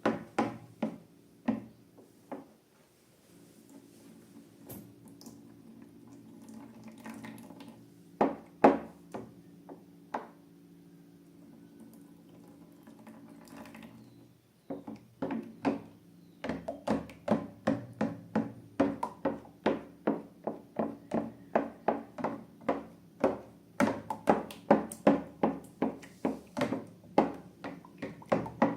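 Wet clicks and squelches of slime being squeezed and kneaded by hand, scattered at first, then coming quickly and regularly in the second half, over a low steady hum.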